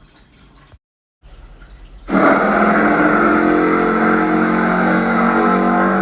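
Designed sauropod dinosaur call sound effect: after a faint, nearly empty first two seconds, a loud, long, steady call with a deep layered tone begins suddenly and holds without a break.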